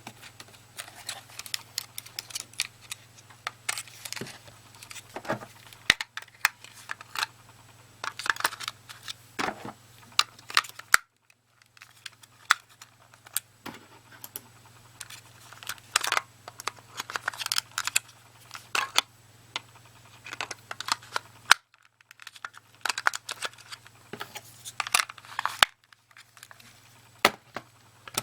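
Irregular plastic clicks, taps and short rattles from handling a Logitech cordless optical mouse and its parts, over a steady low hum. The sound cuts off abruptly a few times.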